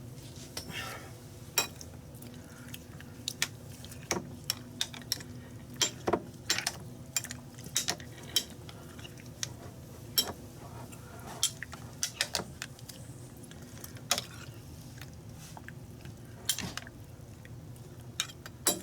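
Irregular light clinks and taps of a metal spoon against a glass canning jar, a couple of dozen scattered knocks over a low steady hum.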